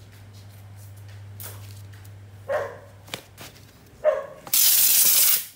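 Two short barks about one and a half seconds apart, then a loud, steady hiss lasting about a second that cuts off sharply.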